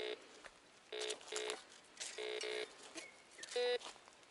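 Metal detector giving short, steady-pitched beeps as its coil is swept back and forth over a buried metal target. About six beeps come mostly in pairs, and the last one, near the end, is the loudest.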